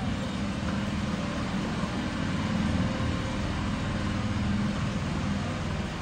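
Steady city road traffic: a continuous low engine rumble with an even hiss above it.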